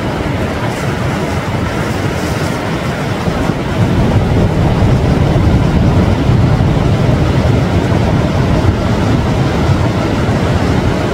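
Ocean surf at the shoreline with wind on the microphone: a loud, steady rush that swells about four seconds in as a wave comes in.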